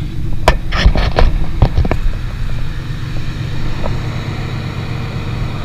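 A Nissan R31 Skyline's RB30 straight-six idling through a straight-pipe exhaust, a steady low rumble. Several sharp clicks and knocks come in the first two seconds.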